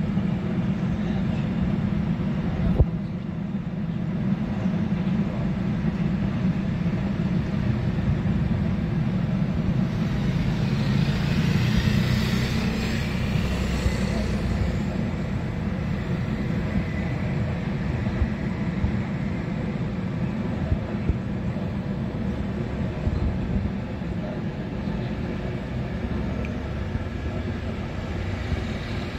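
Distant container freight train rolling past, its wheel noise swelling and fading around the middle, over a steady low rumble.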